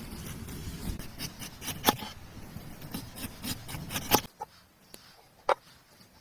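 Dry sticks and wood being handled: rustling and scraping with scattered cracks, stopping about four seconds in, then a few separate clicks.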